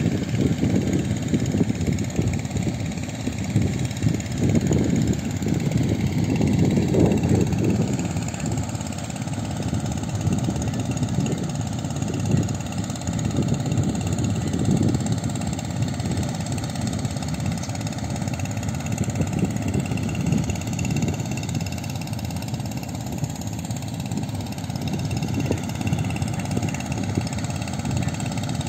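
A small engine running steadily at idle, with an uneven low rumble throughout.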